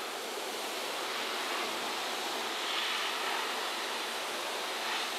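Dog grooming dryer blowing a steady rush of air from its hose nozzle into a curly coat to work out tangles, swelling slightly as the nozzle is moved back and forth.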